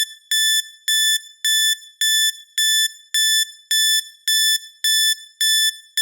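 Electronic timer alarm beeping: identical short high beeps, evenly spaced at a little under two a second, signalling that the countdown has run out.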